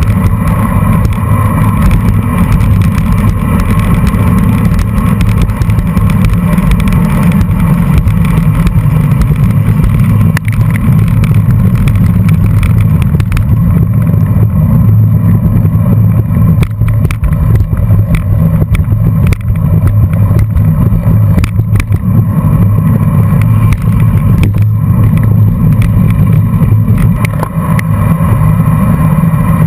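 Loud, steady low rumble of wind buffeting the microphone of a camera mounted on a road bike being ridden at race speed, with tyre and road noise and scattered short knocks.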